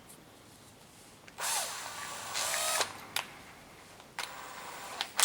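Electric drill driving a 4–20 mm step drill bit through the steel tailgate panel to enlarge a pilot hole, in two short bursts: about a second and a half in and again near the end, with a sharp click between.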